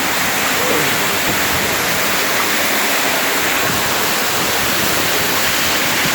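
Waterfall pouring down the rock, a steady, even rush of falling water.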